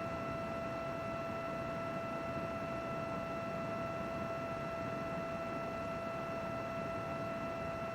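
A computer running steadily: an even fan whir with a constant high whine over it, unchanging throughout.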